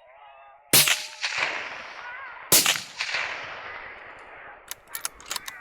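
Two rifle shots just under two seconds apart, each a sharp crack with a long echo fading behind it, followed by a few light clicks near the end.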